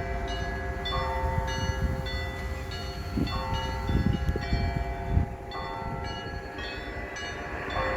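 Church bells ringing: several smaller bells struck again and again in a quick repeating pattern at different pitches over the long hum of a larger bell. Low rumbling thumps come through about three to five seconds in.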